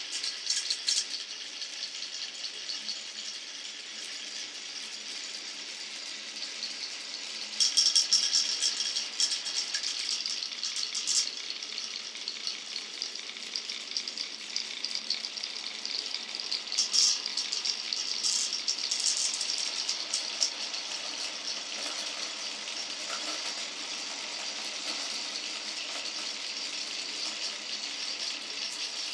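Glass marbles rolling and clattering along a wooden marble run, a steady rolling rattle with denser bursts of clicking about eight seconds in and again around seventeen to twenty seconds in.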